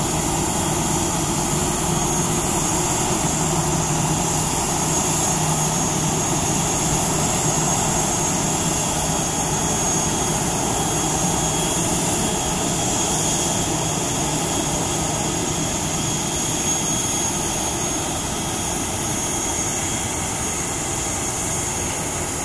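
A Batik Air Airbus A320's jet engines running steadily at taxi power: a high whistling whine over a low rumbling hum, easing slightly near the end.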